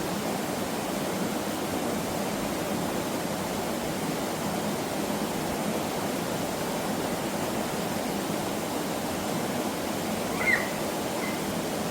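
Mountain stream water rushing steadily over rocks. A short high chirp sounds once near the end.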